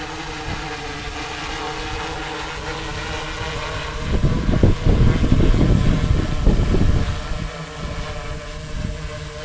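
Sky-Hero Spyder 6 hexacopter's six brushless motors and 16-inch propellers humming steadily in flight, with a louder low rushing for about three seconds in the middle.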